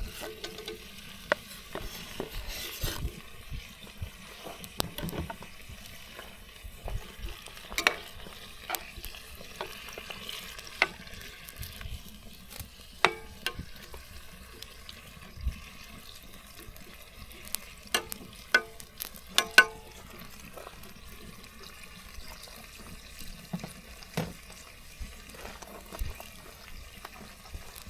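Food sizzling in a pan over a campfire while a utensil stirs it, scraping and clinking against the pan at irregular moments. A quick run of sharp clinks about two-thirds of the way through is the loudest part.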